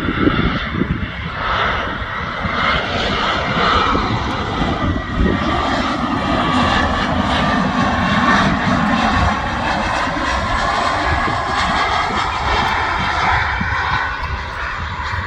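Jet airliner's engines, a loud continuous rumble with a higher whine over it.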